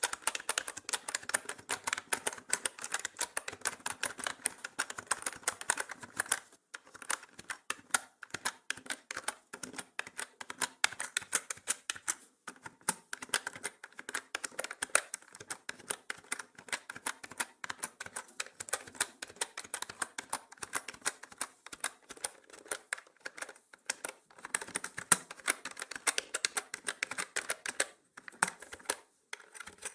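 Mechanical keyboard typing: a fast, continuous run of key clicks and clacks, with a few brief pauses between bursts.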